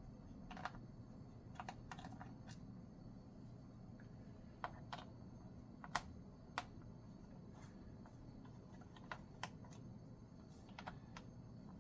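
Faint, irregular light clicks and taps of laptop parts being handled during disassembly, scattered singly and in small pairs a second or more apart, over a low steady background hum.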